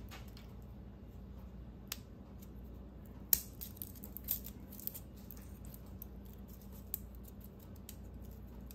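Garlic cloves being peeled by hand: faint crackling of the dry papery skin, with a few sharp clicks, the loudest about three seconds in, over a steady low hum.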